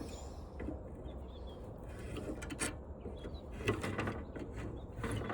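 Scattered light clicks, rattles and knocks of hand tools and metal parts while an old washing machine is being taken apart, with a few sharper clicks near the middle and end.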